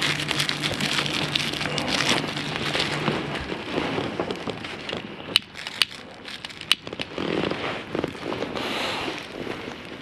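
A small kindling fire of tissue paper and hinoki sticks just catching in a Firebox stove, crackling unevenly, with three sharp pops around the middle.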